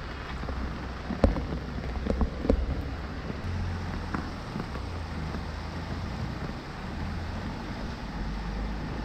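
Steady rain falling, with a low rumble underneath and a few sharp taps between about one and three seconds in.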